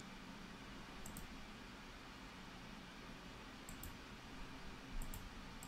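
Computer mouse clicks, each a quick double tick of press and release, three or four times, over a faint steady room hiss.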